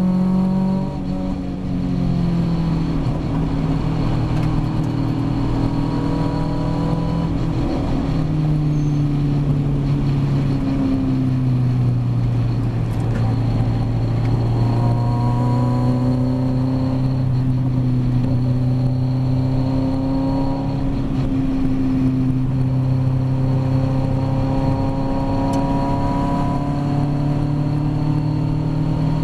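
Ginetta G40 race car's four-cylinder engine heard from the cockpit at racing speed. The engine note falls as the driver lifts about a second in, climbs in steps through the gears, drops again for a slower corner around twelve seconds in, then pulls up through the gears once more.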